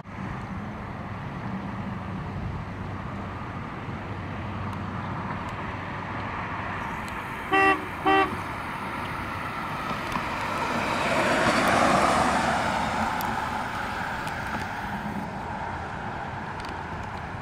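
A 1985 Cadillac Fleetwood Brougham limousine gives two short toots of its horn, then drives past. The noise of its 4.1-litre V8 and tyres swells to a peak a few seconds later and fades as it pulls away.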